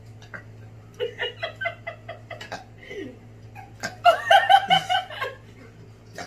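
High-pitched laughter in quick, repeated 'ha-ha' pulses. There is a shorter run about a second in and a louder run about four seconds in.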